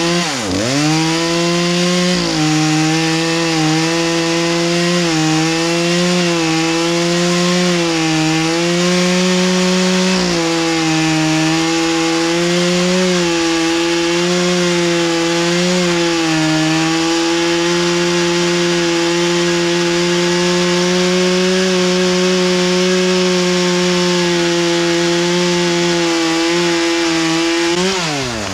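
Chainsaw engine revved up and held at high throttle through one long cut in red oak, its pitch dipping and recovering under load before dropping back near the end. The chain is dull, so the cut drags on for many seconds.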